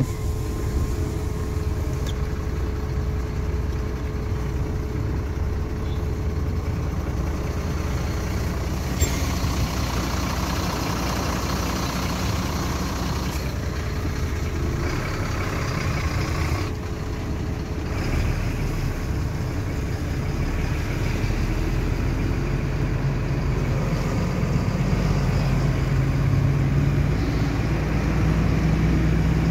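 Mercedes-Benz truck's diesel engine running at low speed, heard from inside the cab. In the last third the engine note rises steadily as the truck pulls away and accelerates.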